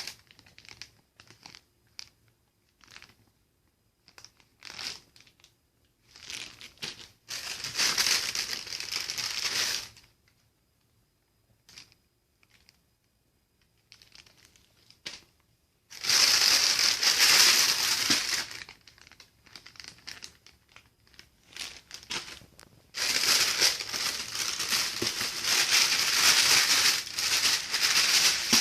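Packaging being unwrapped: crinkling and rustling in three long spells, with scattered clicks and short rustles in between.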